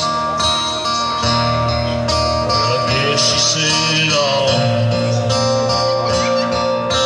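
A live country-rock band playing: strummed acoustic guitar, electric bass and drums, with a held lead note that slides down in pitch about four seconds in.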